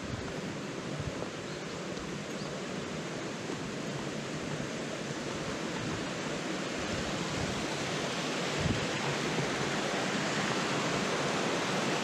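Rushing water of a small forest waterfall, a steady hiss that grows gradually louder as it is approached, with a few faint thuds from footsteps.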